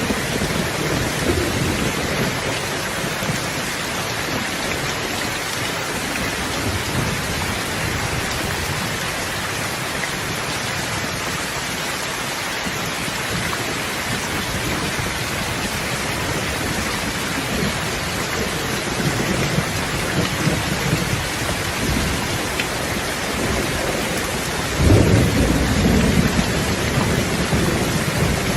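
Steady heavy rain with thunder rumbling low underneath, swelling and fading at times. Near the end a louder roll of thunder breaks in suddenly and keeps rumbling.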